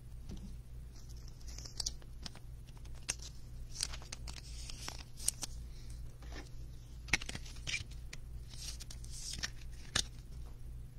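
Faint rustling and scattered light clicks of a trading card in a clear plastic holder being handled, over a steady low hum.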